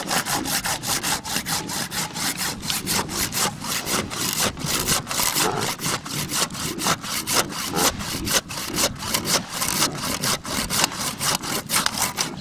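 Fine-toothed wood handsaw cutting through a reindeer bull's antler in quick, even back-and-forth strokes, about four a second. The antler is being sawn off close to the head.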